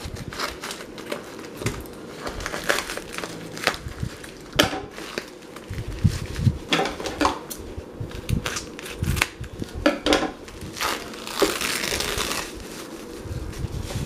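Plastic packaging crinkling and crackling as scissors cut through a padded plastic mailer and the foam and bubble wrap around a flashlight, with many short snips and crackles and a longer stretch of rustling about eleven seconds in.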